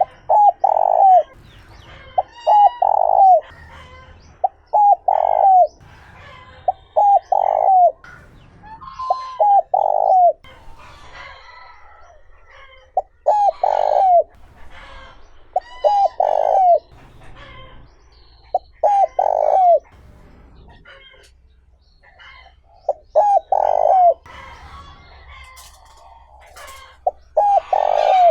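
Spotted dove cooing in a smooth, clean voice, one phrase about every second or two: a couple of short notes followed by a longer, falling coo. There are longer pauses about ten seconds in and again about twenty seconds in. Other small birds chirp faintly and higher in the background.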